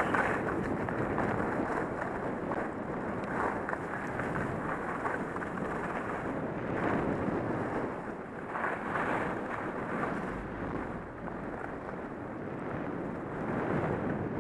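Wind rushing over a helmet-mounted camera's microphone during a downhill ski run, mixed with the hiss of sliding over packed snow that swells every few seconds.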